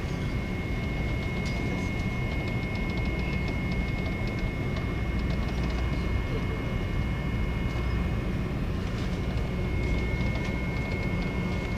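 A ferry's engines droning steadily, heard from inside a passenger cabin: a low, even rumble with a faint steady high whine above it.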